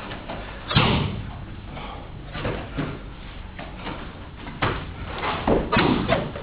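Aikido throws: partners' bodies thudding onto the padded dojo mats as they take breakfalls, several times. The loudest comes about a second in, and a few more follow in quick succession near the end.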